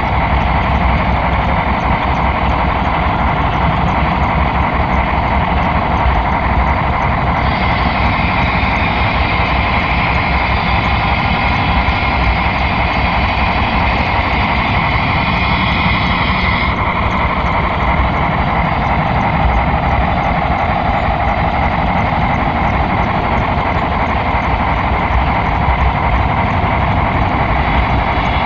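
Steady rolling rattle and rumble of HO scale model train wheels on the rails, heard from a camera riding on a flatcar pushed by a model locomotive.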